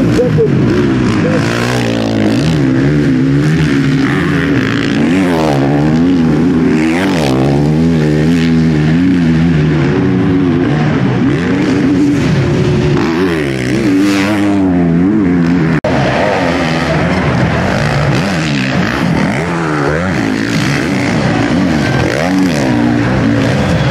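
Several motocross bikes racing, their engines revving up and down as the riders work through the corners, with pitches rising and falling over each other. A brief break about two-thirds of the way through.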